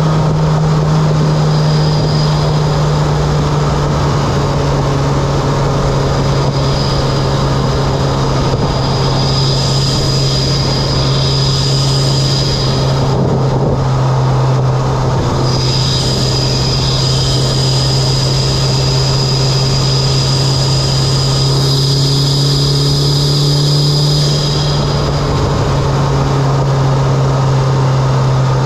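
Mitsubishi Lancer Evolution X's turbocharged four-cylinder running at a steady cruise with a strong, even drone, through an aftermarket intake and exhaust. A thin high whistle rides over it, dropping out twice, and the engine note dips slightly about halfway through.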